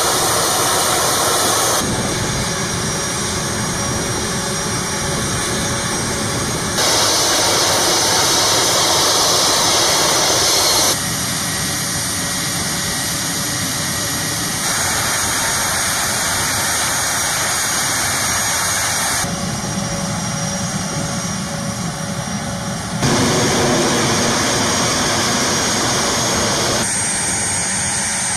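A-10 Thunderbolt II's twin turbofan jet engines running on the ground: a loud, steady jet roar with some whine. Its level and tone jump every few seconds as the shots change.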